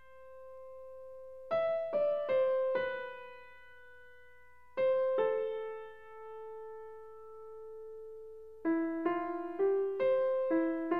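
Solo piano background music: a few struck notes left to ring out, then a quicker run of notes near the end.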